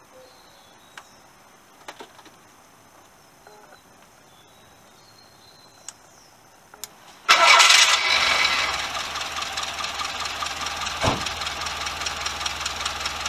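A few faint clicks, then a VW Golf Mk2's carburettor four-cylinder petrol engine starts about seven seconds in, loud at first, then settles into a steady idle.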